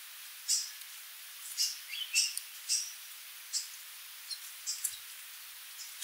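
Sooty babbler (Stachyris herberti) giving a string of short, high-pitched calls at irregular intervals, one with a brief rising note about two seconds in.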